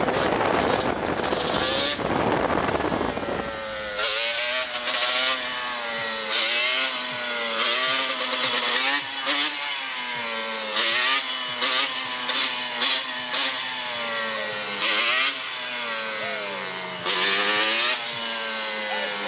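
Yamaha Banshee's two-stroke twin engine revving up and down while held in a wheelie, with repeated short blasts of throttle. The first few seconds sound rougher and noisier before the engine note settles into the rise-and-fall pattern.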